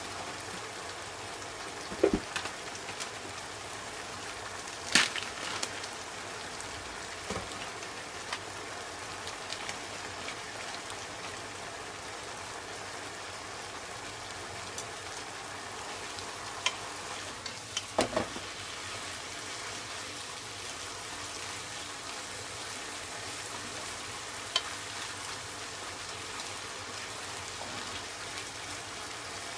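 Daikon peel and pork sizzling in a pan as they are stir-fried and simmered down, a steady hiss, with a utensil knocking against the pan a few times, loudest about 2, 5 and 18 seconds in.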